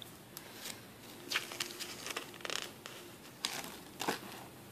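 Pages of a spiral-bound paper booklet being turned and handled: soft rustles and crinkles with scattered light clicks.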